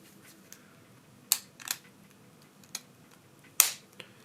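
A handful of sharp clicks and taps as the phone's middle frame is set back in place over the main board, about five in all, the loudest about three and a half seconds in.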